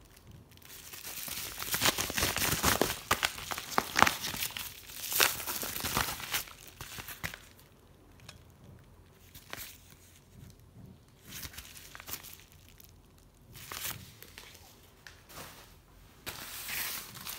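Padded paper mailer and plastic card packaging being torn open and crinkled, loudest for the first several seconds, then quieter intermittent rustles and light clicks as a card in a hard plastic holder is handled.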